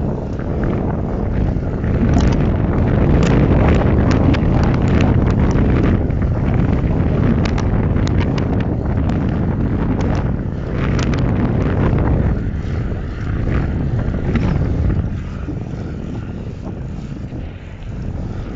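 Gusty wind buffeting the microphone while cycling: a loud, low rumbling rush with scattered sharp clicks over the first eleven seconds. It eases somewhat about fifteen seconds in.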